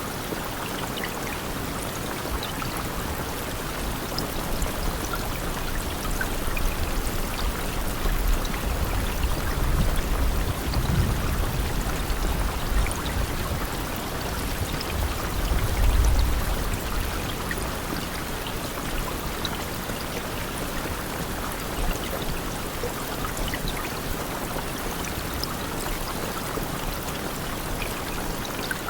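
Steady rain falling, a dense even hiss with scattered drop ticks. A low rumble swells up about a third of the way in and again around the middle.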